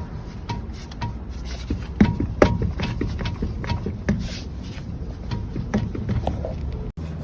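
Irregular knocks and clunks from a car's MacPherson strut front suspension over a steady low rumble, the two loudest about two seconds in: a suspension knock, the sign of a worn or loose front-end part.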